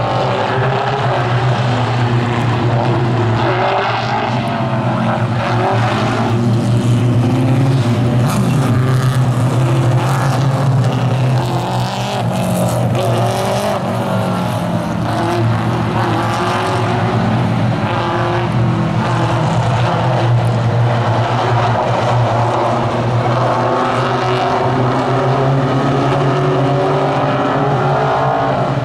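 Mini stock race cars racing on an oval, several engines running at once. The pitch rises and falls as the drivers get on and off the throttle.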